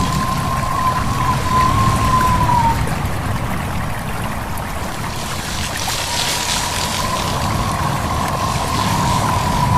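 Babbling stream with wind blowing through leaves. A thin, wavering whistle of wind drops away about three seconds in and comes back from about six seconds.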